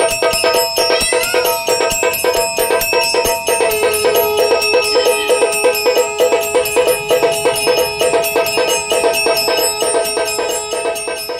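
Small brass automatic aarti machine running: its bell and steel drum are struck by mechanical levers several times a second, the bell's ringing tones sounding continuously. A steady held tone joins about four seconds in, and the sound gets slightly quieter near the end.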